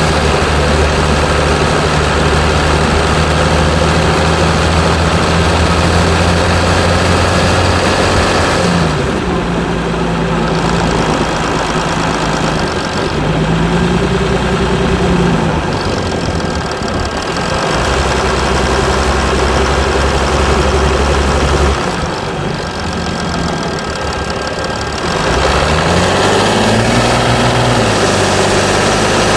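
Mercedes E320 CDI V6 diesel engine running after a cold start, mostly at a steady speed, with engine speed rising and falling briefly a few times, most plainly near the end.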